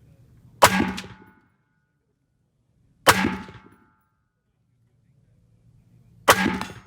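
Three rifle shots, about two and a half and three seconds apart. Each is followed by a short metallic ringing, typical of steel targets being hit.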